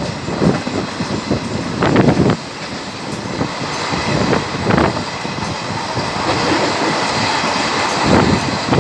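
Train passing at speed: a steady rumble of the wagons with the wheels knocking and clattering over rail joints.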